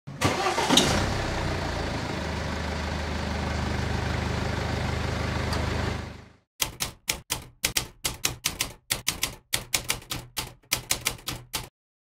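A car engine cranking and catching, then running at a steady idle before fading out after about six seconds. It is followed by a run of about twenty typewriter keystrokes in short uneven clusters.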